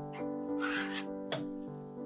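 Background piano music, with a new note or chord every fraction of a second.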